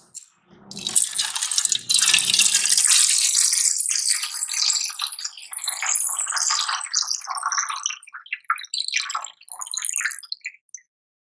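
Liquid being poured into a container: a steady pour for several seconds that breaks up into trickles and drips and stops shortly before the end.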